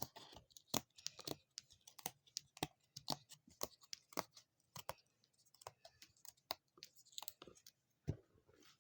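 Small board-game tokens being handled, giving irregular light clicks and taps as they knock together and are set down on a table, with a little rustling.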